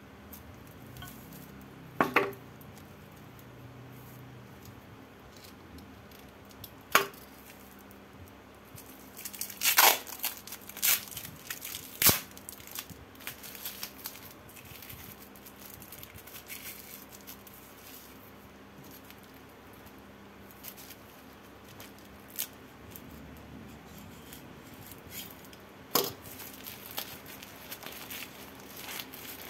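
Brown wrapping tape being peeled and torn off a new motorcycle exhaust header pipe, with crinkling of the loose wrapping. Several sharp clicks and knocks of the metal pipe and parts on the table are scattered through.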